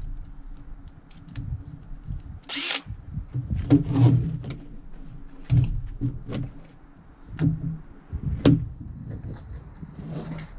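Power drill boring a hole for a ground cable, running unevenly, with irregular knocks and clicks of the work between spurts and a short hiss about two and a half seconds in.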